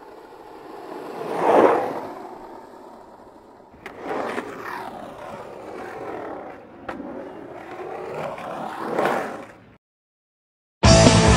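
Skateboard wheels rolling on pavement, swelling to a peak about a second and a half in and fading, then rolling again after a sharp click with another click midway, swelling once more before cutting off abruptly. Loud rock music comes in just before the end.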